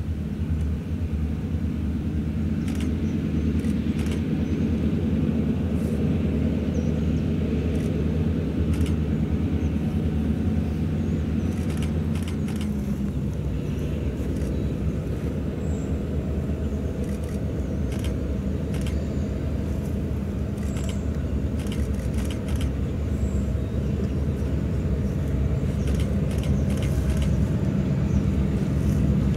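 Diesel locomotives of a freight train running in the distance, a steady low engine drone that shifts in pitch about halfway through and grows a little louder near the end as the train approaches.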